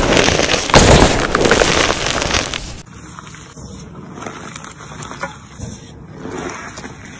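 Hands squeezing and crushing crumbly gym chalk, a loud dense crunching. About three seconds in it drops to a much quieter, softer crunching of hands pressing into fine powdery chalk and cornstarch.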